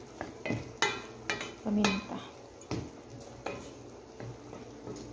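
Wooden spatula stirring and scraping diced chicken around a stainless steel pan, with repeated scrapes and knocks at uneven intervals over the light sizzle of the chicken frying in oil.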